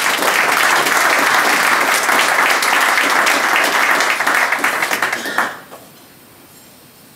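Audience applauding a speaker's welcome; the clapping dies away about five and a half seconds in.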